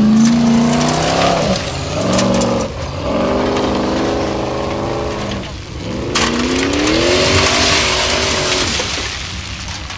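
Formula Offroad buggy's race engine revving hard on a steep gravel climb. The revs drop and climb again several times. In the second half there is a rush of gravel and dirt thrown by the spinning tyres.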